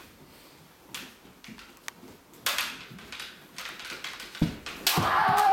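Kendo bamboo shinai knocking together a few times as two fighters probe with crossed swords, then near the end a stamp on the wooden floor, a sharp strike and the start of a loud kiai shout.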